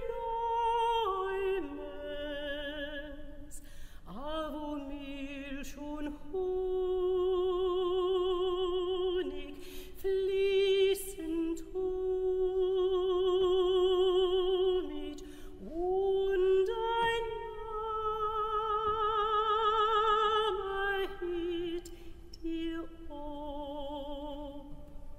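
Soprano voice singing a slow melody in long held notes with wide vibrato, sliding up into the start of each phrase.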